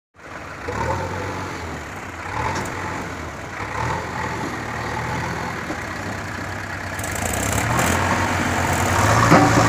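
Diesel engines of a tractor and a JCB backhoe loader running steadily with a low hum, growing louder and harsher from about seven seconds in, with a single knock near the end.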